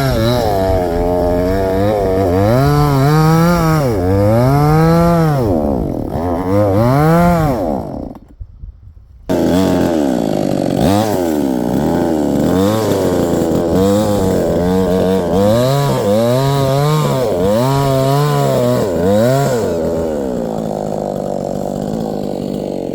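Chainsaw cutting a tree, its engine pitch rising and falling again and again as it revs and bogs down in the cut. The sound drops out abruptly for about a second partway through, then picks straight back up and settles into a steadier, slightly quieter run near the end.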